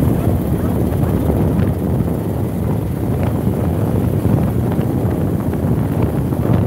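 Steady wind rumble buffeting the camera microphone on a moving motorcycle, with the motorcycle's engine and road noise running underneath.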